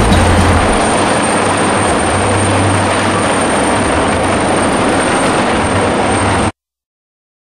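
AgustaWestland AW139 twin-turbine rescue helicopter hovering, its rotor and turbines running steadily with a high thin whine over the rotor's low pulsing; the sound cuts off suddenly about six and a half seconds in.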